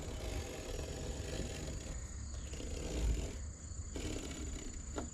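Steady high-pitched chirring of crickets, under a low uneven rumble of wind on the microphone that swells about three seconds in.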